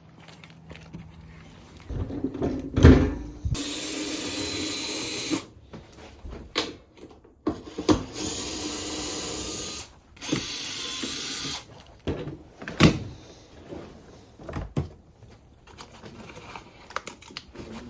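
Cordless power drill/driver running in three short bursts of about one to two seconds each, with sharp knocks in between: screws being driven out to open the dishwasher's inner door panel.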